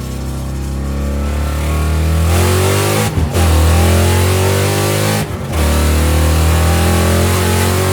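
2000 Ford SVT Mustang Cobra R's 5.4-litre V8 accelerating hard under full throttle, the engine note climbing, with two quick upshifts about three and five seconds in where the sound briefly drops before climbing again.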